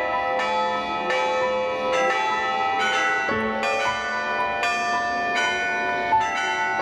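Church bells pealing, struck about twice a second, each stroke ringing on and overlapping the next.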